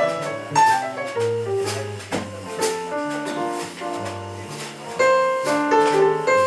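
Live band playing: electric bass line under keyboard chords, with light cymbal and drum strokes from a drum kit.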